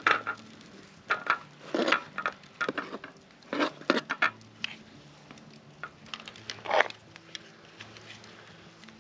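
Irregular crunches and clinks, like handling or eating, with soft low background music notes coming in partway through.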